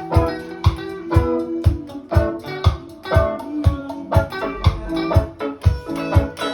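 Recorded music playing: plucked guitar and bass lines over a steady beat of about two drum hits a second.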